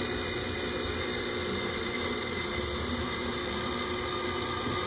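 Mercury 40 hp outboard motor running steadily at idle with its lower unit churning the water, while its cooling-water intake is in question for not drawing water.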